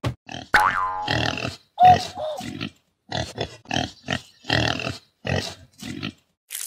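Pig grunting sound effect: a run of short grunts, a few a second, with a louder squeal about two seconds in.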